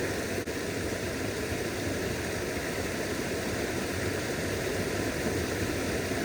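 Creek water rushing over small rapids: a steady, even rush.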